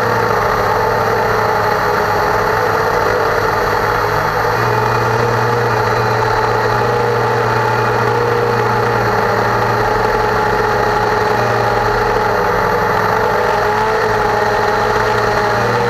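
Cheerson CX-20 quadcopter's four brushless motors and propellers running in flight, heard through the onboard camera: a loud, steady whine whose pitch wavers slightly near the end.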